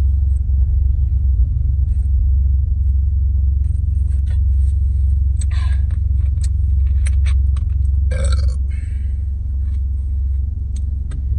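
A woman burping up gas after gulping Pepsi: two burps, a short one about five and a half seconds in and a longer one about eight seconds in, with scattered small clicks between them. Under it all runs the steady low rumble of a car.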